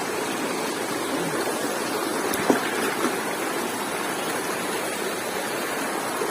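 River water rushing steadily over rocks, with a short knock about two and a half seconds in and a fainter one half a second later.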